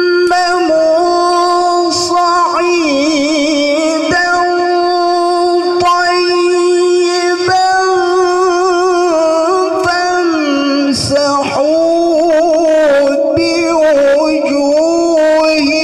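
A male Quran reciter (qari) chanting in the melodic tilawah style, drawing out long ornamented notes with wavering vibrato and slides between pitches, with short pauses for breath.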